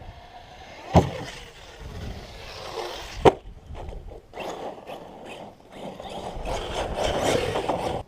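Arrma Kraton 6S RC truck slamming into the ground twice, about a second in and again about two seconds later, hard landings. Then its tyres scrabble and scrape over loose dirt and gravel as it drives on.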